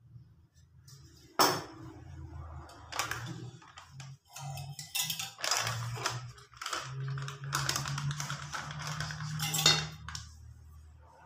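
Kitchen handling sounds: a sharp clink about a second and a half in, then a busy run of clattering, scraping and rustling as utensils, steel bowls and a plastic flour packet are handled.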